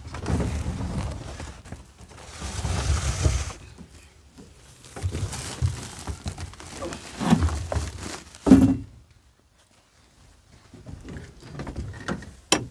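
A farm vehicle rumbling and knocking in uneven swells as it moves slowly over rough ground, with a heavier thump past the middle and a sharp click near the end.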